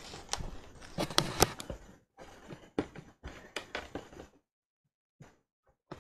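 Hands handling and pressing together small plastic construction bricks, giving a run of sharp clicks and knocks, the loudest a few snaps about a second in. The sound stops abruptly about two-thirds of the way through, leaving only a couple of faint ticks.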